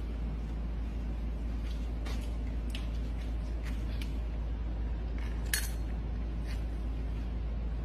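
A dog's food bowl clinking lightly several times, the loudest clink about five and a half seconds in, over a steady low hum.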